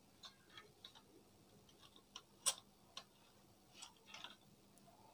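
Faint scattered clicks and taps of a DVD player's plastic loader assembly being handled and shifted in its metal chassis, the loudest about halfway through.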